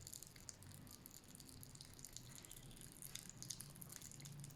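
Faint, scattered crackling of popping candy in a candy egg, a fizzing like an egg frying.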